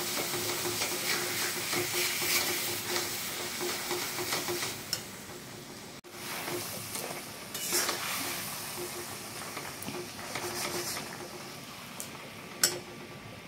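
A spatula scraping and stirring melting jaggery in an aluminium kadai, with a steady sizzle as the jaggery cooks down into syrup. The sound drops away sharply about halfway, the scrapes come more sparsely after that, and there is a short sharp click near the end.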